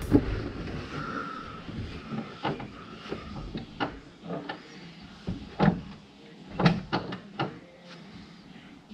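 Scattered light knocks and clicks as a person settles into a racing bucket seat in a car's cockpit and handles the seat hardware. The loudest knocks fall a little past halfway and about a second later.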